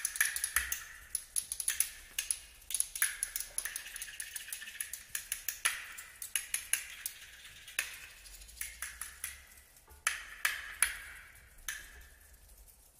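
Contemporary chamber ensemble playing a dense scatter of short, high pings and clinks, each ringing briefly. The strikes come irregularly, several a second, then thin out and fade away near the end.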